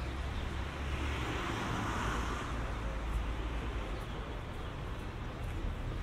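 A car passing on a wet street: the hiss of its tyres swells to its loudest about two seconds in and then fades, over a steady low rumble.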